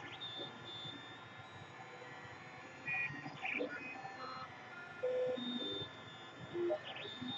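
Lulzbot Taz 3D printer running a print: its stepper motors give short pitched tones that jump to a new pitch with each head and bed move, over a steady background hum.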